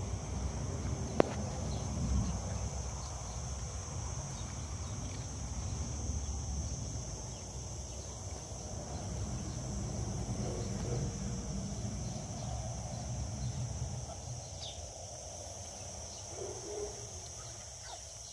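Outdoor garden ambience: a low rumble of wind on the microphone under a steady high insect drone, with one sharp click about a second in.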